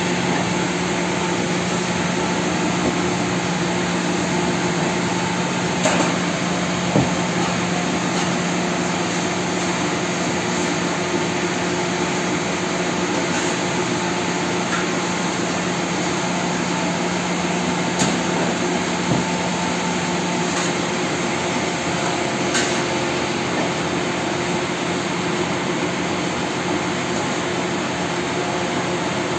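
Steady mechanical drone of bakery machinery, a hum over an even hiss, with a few light knocks. The hum drops out about two-thirds of the way through.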